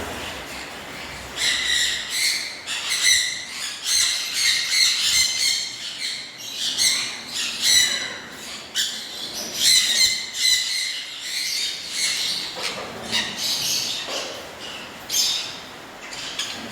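Many small birds chirping and squawking, with short high-pitched calls overlapping one another throughout.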